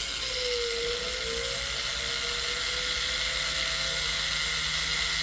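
Jeweler's rotary tool spinning a silicone polishing wheel against the end tab of a gold chain: a steady whine that sags in pitch about a second in as the wheel bears on the metal, then holds, over a hiss of the wheel rubbing.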